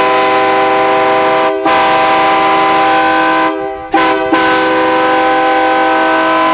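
Nathan Airchime P-series train horn, a loud chord of several steady notes. It breaks briefly about a second and a half in, stops for a gap near three and a half seconds, then sounds again in a long held blast.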